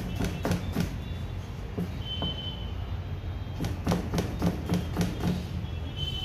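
Chef's knife chopping a green vegetable on a plastic cutting board: repeated knocks of the blade on the board, irregular at first, then a quicker run of strokes a few seconds in, over a steady low hum.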